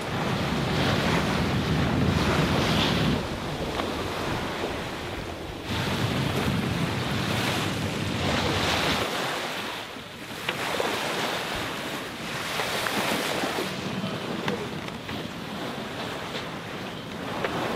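Wind and sea on a sailing yacht under sail: waves washing past and wind buffeting the microphone, swelling and easing every few seconds.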